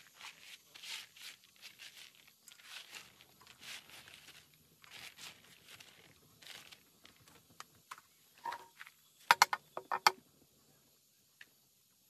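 Hands sweeping and scooping chopped shreds across a plastic tarp, a series of short rustling scrapes. About nine seconds in comes a quick run of loud, sharp smacks.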